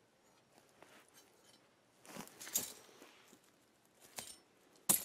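Rustling and crunching in dry hay, then a single sharp snap near the end as a bucket trap is set off.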